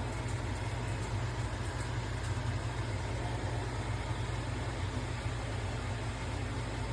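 A steady low mechanical hum with a hiss of noise over it, unchanging throughout.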